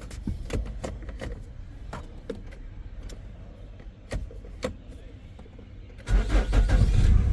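A few light clicks and taps, then about six seconds in the Nissan Altima's engine starts and settles into a steady low running rumble.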